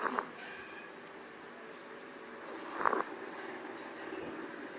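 Yorkshire terrier snoring: a loud snore right at the start and another near the three-second mark, about two and a half seconds apart.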